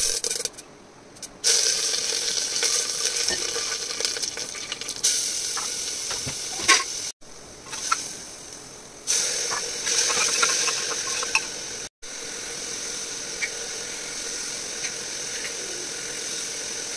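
Ingredients frying in hot oil in an aluminium pot, sizzling steadily with scattered crackles, while a metal spatula stirs them. The sizzle drops out briefly twice.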